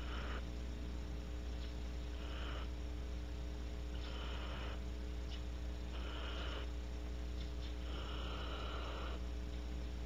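Barn owls giving breathy, hissing snore calls, about one every two seconds, the last the longest, over a steady electrical hum.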